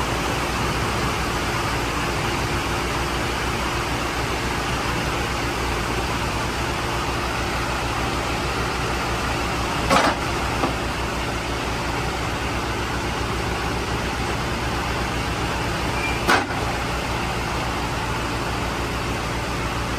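Wood-Mizer sawmill's engine running steadily, with two sharp knocks, about ten and sixteen seconds in.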